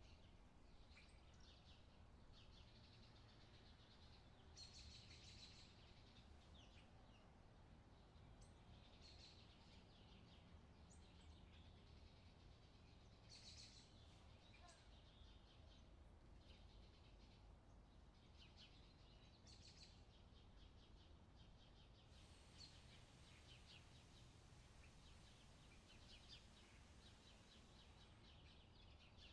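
Faint recorded summer birdsong used as a background track: several small birds chirping and twittering, over a low steady noise.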